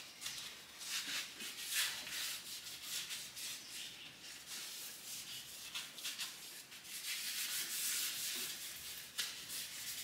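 A damp cloth towel rubbing over the face of a milk pump receiver panel in a quick run of short wiping strokes.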